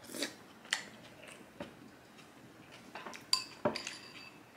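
Spoon clinking against a ceramic cereal bowl: a handful of sharp clinks, some with a brief ring, the loudest pair about three and a half seconds in.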